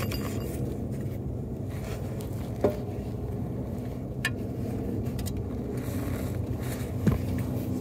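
Three brief metallic clicks and knocks as a suspension bolt is worked into line on a control-arm mount, over a steady low hum.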